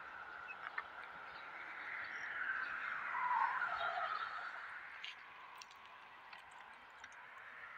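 A road vehicle passing over the concrete overpass above: a faint rush that swells for a couple of seconds with a falling pitch, then fades.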